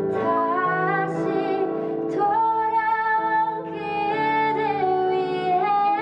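A woman singing a slow, tender ballad with long held notes, accompanied by sustained chords on a stage piano.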